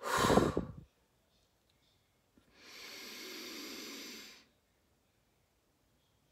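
A woman doing a cleansing breath exercise. She blows out a short, strong breath through pursed lips, lasting under a second. About two seconds later comes a softer, steady in-breath through the nose of about two seconds.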